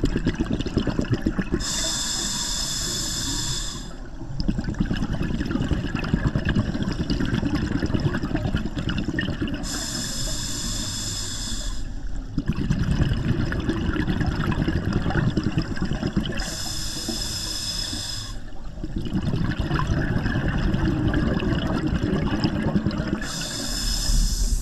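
Scuba regulator breathing underwater: four hissing inhalations with a whistling tone, about seven seconds apart, each followed by a long burble of exhaled bubbles.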